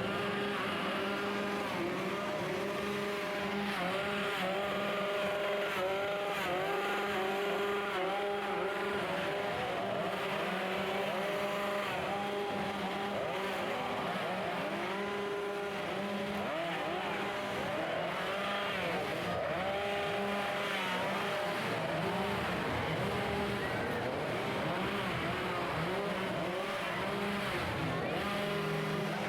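Several gasoline chainsaws idling and being revved over and over, their pitches overlapping as they rise and fall.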